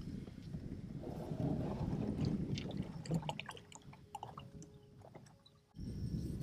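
Plastic fishing kayak's hull scraping and sliding off a muddy, grassy bank into the water, a low scrape for about three seconds, followed by scattered light clicks and knocks of the gear aboard.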